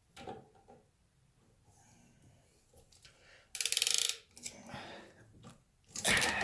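A PEX crimp or clamp tool being worked: a quick run of fine ratcheting clicks lasting under a second, partway through, among quieter handling noises. A louder rattling knock comes near the end.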